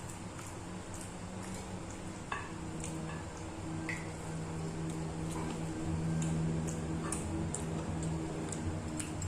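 A person eating: wet chewing and small mouth and lip clicks, scattered irregularly, over a steady low hum.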